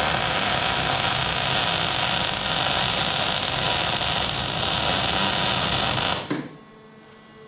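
Murex 240 CO2 MIG welder's arc sizzling and crackling steadily during a weld, cutting off about six seconds in and leaving a faint hum.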